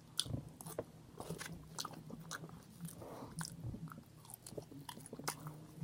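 A person chewing food close to the microphone: irregular wet mouth clicks and smacks, several a second.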